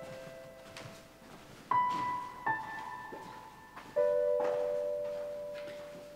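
Slow, sparse piano music: single notes and two-note chords struck about once every second or two, each left to ring and fade. A lower two-note chord struck about four seconds in rings on and slowly dies away.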